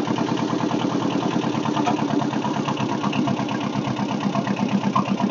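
Kubota machine's diesel engine running steadily at low revs while it lifts a van.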